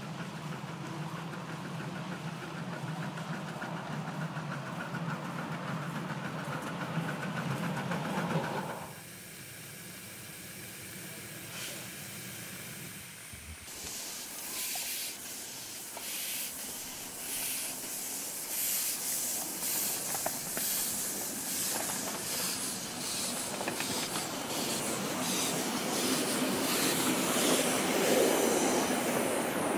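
Miniature ride-on live steam locomotives running, steam hissing. At first a steady low hum; from about halfway there is a hiss with quick rhythmic beats, loudest near the end.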